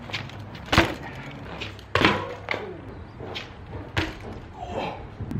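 A hardtail dirt-jump bike knocking and clanking against brick pavers as the rider hops and drops it. There are three sharp knocks, about a second in, about two seconds in and about four seconds in, with smaller knocks between.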